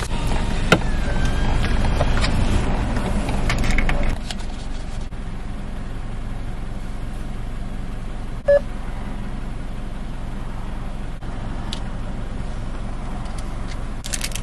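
Steady low rumble inside a car, louder and with a few clicks for the first few seconds. A single short beep sounds about eight seconds in.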